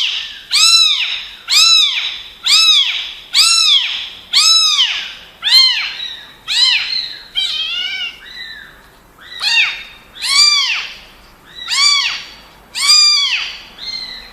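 A kitten meowing loudly and over and over, about one call a second, each call rising and then falling in pitch; around the middle the calls briefly crowd together and overlap.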